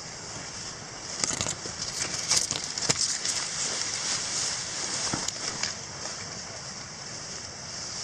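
Tall dry savanna grass swishing and crackling as hikers with large backpacks push through it on foot, loudest between about one and six seconds in, over a steady high hiss.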